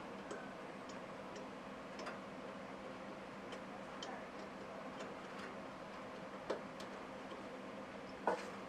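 Light clicks and taps at irregular intervals, the two loudest about six and a half and eight seconds in, over a steady faint hum.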